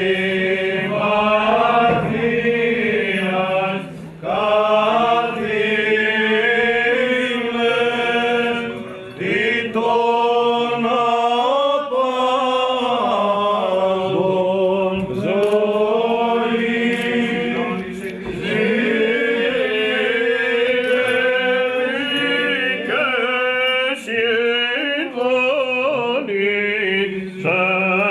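Byzantine chant sung by men's voices, a melodic line that rises and falls over a steady held low drone note (the ison).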